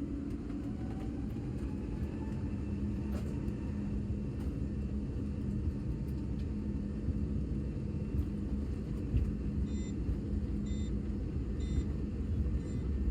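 Passenger aircraft cabin noise: a steady low rumble of the engines and airframe, with a held hum. Near the end a short high beep repeats about once a second.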